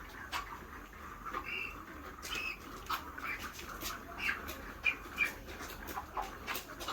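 Broiler chickens giving short squawks and peeps, a dozen or so scattered through, among frequent sharp clicks and rustling.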